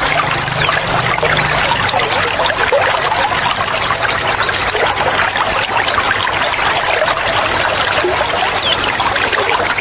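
Running water trickling and splashing steadily, with birds chirping high and brief a few times, notably a cluster a few seconds in and another near the end.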